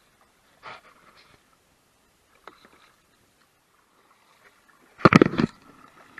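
Kayak paddle strokes dipping and splashing in calm river water: two faint strokes early, then a much louder close splash about five seconds in.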